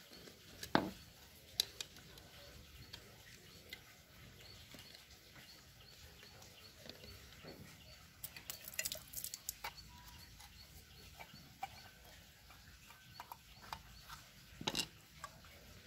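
Scattered light clicks and knocks of a screwdriver and small metal parts as a Supra 125 carburetor's float bowl is unscrewed and taken off. There are two near the start, a cluster about halfway through and a louder knock near the end.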